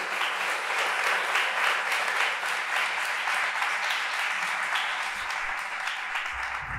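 Audience applauding: many hands clapping in a steady, dense patter that eases off near the end.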